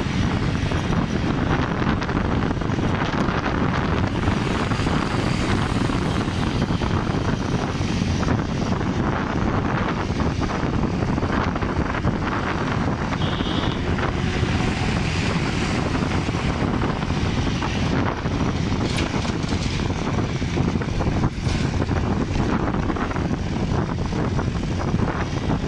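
Steady rush of wind and engine noise from a motorcycle ride at speed, heaviest in the low end and unbroken throughout.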